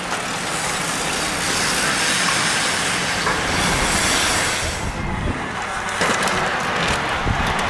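A peloton of road racing bicycles passing close by: a steady rush of tyres on tarmac and wind, with faint clicks in the last second or so.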